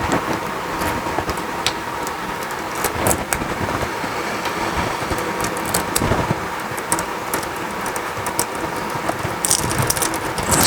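A steady mechanical noise runs throughout, with scattered clicks and crinkles from small parts and packaging being handled, such as an end mill being taken out of its wrapper.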